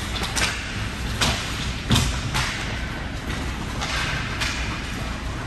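Ice hockey play close to the goal: a run of short scraping and clacking strikes of skate blades and sticks on the ice, about six in all, over a steady low arena rumble. The loudest is a thud about two seconds in.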